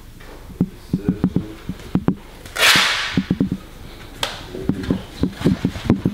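Long paper strips being unrolled and shaken out by hand, with one loud rustling swish about two and a half seconds in, among repeated soft low thumps and knocks.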